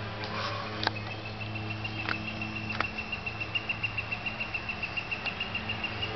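A high, even chirping that starts about a second in and pulses about four times a second, with three sharp clicks from a toddler's steps and hands on the metal playground steps and railing.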